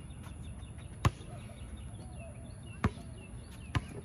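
Basketball bouncing on an outdoor hard court: three sharp smacks, a loud one about a second in and two lighter ones near the end as the ball is dribbled.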